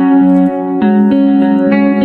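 Background music led by guitar, with held notes changing about every half second.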